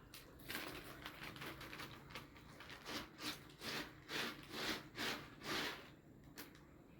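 Rhythmic rubbing or scraping strokes, about two a second, strongest in the middle and fading out near the end.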